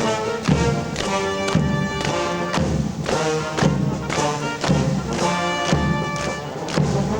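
Military band playing a dobrado, a Brazilian military march, on brass and winds over a bass drum that strikes about once a second.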